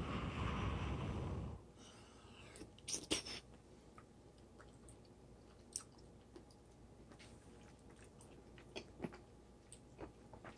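A person blowing on a hot spoonful of shrimp in tomato sauce for about a second and a half, then quietly chewing it, with scattered soft mouth clicks.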